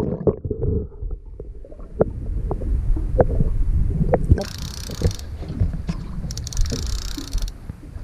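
Muffled low rumble of water heard through a camera held underwater, with many small clicks and knocks and two short spells of bubbling hiss about halfway and near the end.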